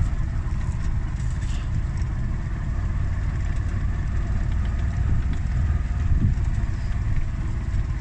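Small engine of an open-sided auto-rickshaw (tuk-tuk) running steadily as it drives along a rough track, a low even rumble with a rapid pulse.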